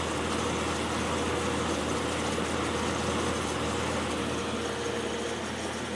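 Magic Chef dehumidifier running, its compressor humming steadily under the fan noise. Near the end the compressor cuts out and the hum drops, leaving the fan running. The compressor is short-cycling, shutting off every minute or two when it should run continuously.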